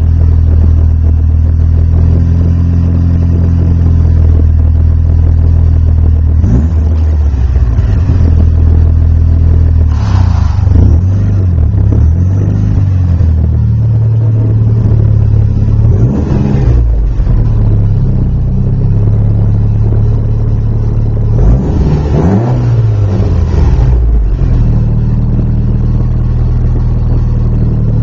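Mitsubishi Lancer Evolution IX's turbocharged 4G63 inline-four running through a full Megan Racing exhaust with the catalytic converter deleted: a steady idle with four short throttle blips, the last one longest.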